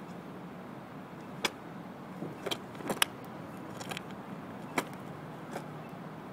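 A handful of short, sharp clicks and scuffs from a person's movements through a martial arts form (shoes on asphalt, clothing, things in a pocket), two of them close together in the middle. Under them runs a steady low hum of outdoor background noise.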